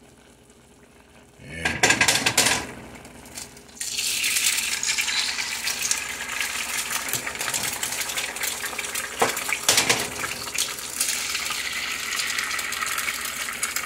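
Pots, pans and utensils clattering about two seconds in, then a steady loud hiss from about four seconds in, as of food sizzling on the stove or water running.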